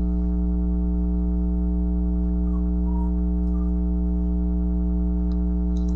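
Steady electrical hum with a stack of overtones, unchanging throughout: mains hum picked up in the recording.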